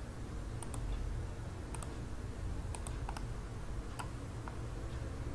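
Computer mouse clicks, about seven sharp clicks at irregular intervals, over a low steady hum.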